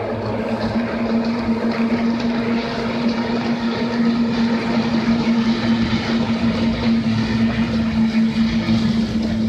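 Kyotei racing boats' two-stroke outboard engines running flat out on the course, a steady drone that holds one pitch throughout.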